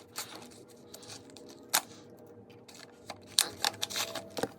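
Scattered light clicks and handling noise from a squeeze-ball slime toy and its packaging, with one sharp click just under two seconds in and several more near the end.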